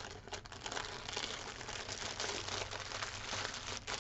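Clear plastic packaging crinkling and crackling continuously as small bags of diamond painting drills are handled and pushed back into their plastic sleeve.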